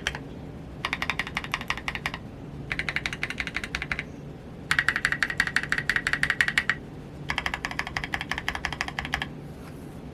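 Typing on a mechanical keyboard with lubed Gazzew Boba U4T tactile switches, a polycarbonate plate, an aluminium case and KAT-profile PBT keycaps. The typing comes in four quick runs of keystrokes with short pauses between them. The third run is the longest and loudest.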